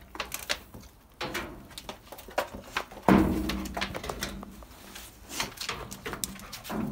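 Domestic hen clucking low, mixed with knocks and rattles from a wire cage; a loud clatter about three seconds in.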